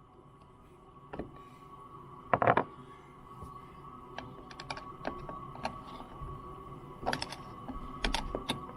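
Irregular light clicks and taps of small tools and metal parts being handled, with a louder clatter about two and a half seconds in, over a faint steady high hum.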